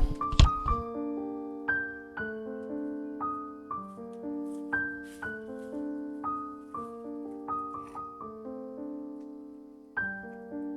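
Background piano music: a slow run of single notes and soft chords, each ringing and fading. A short low thump comes about half a second in.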